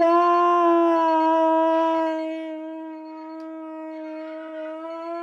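A child's voice holding one long, steady note, drawn out like a howl. It gets quieter after about two seconds.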